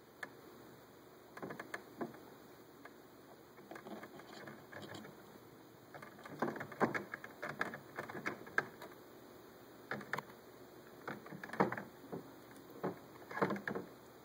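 A raccoon's clawed paws handling a plastic hummingbird feeder: irregular clicks, taps and scrapes in short flurries, sparse at first and busier in the second half.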